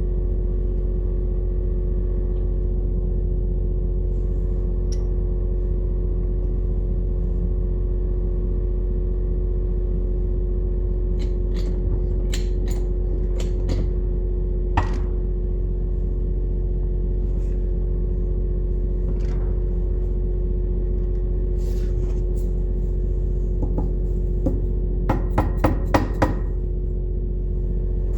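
A steady low machine hum runs throughout, with a few scattered sharp metal taps and knocks, then a quick run of about eight taps near the end, as of hand tools working on metal parts.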